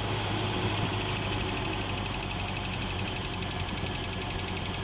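Old-model GAZelle's UAZ four-cylinder petrol engine idling steadily and evenly, running properly on a newly fitted ignition distributor after the old one had broken apart.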